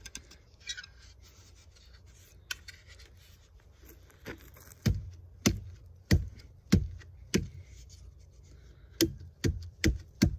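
A wooden stick being knocked to drive it tightly into the hollow handle of a small steel survival shovel: faint rubbing at first, then six dull knocks a little over half a second apart, and four quicker ones near the end.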